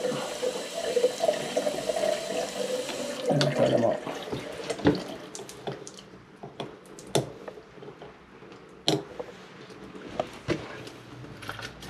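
Shower water running as a steady hiss, which falls away about three seconds in. It is followed by a series of sharp metallic clicks and taps as the handle is worked off the shower valve's trim so the valve can be adjusted.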